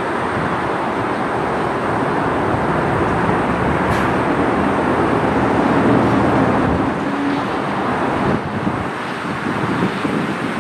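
Airbus A330-300 airliner's jet engines, a loud steady noise that swells to a peak about six seconds in and eases off after about eight and a half seconds as the aircraft passes.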